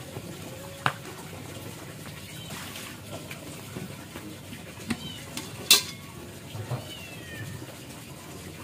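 An animal calling in short, high, falling cries, four times. There are also a few sharp cracks, the loudest just before the sixth second.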